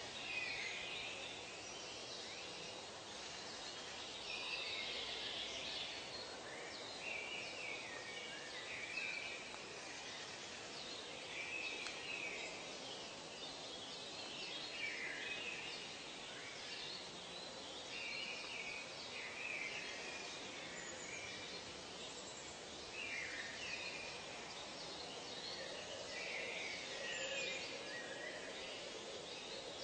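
Nature ambience recording: birds calling in short chirping phrases every second or two over a steady background hiss.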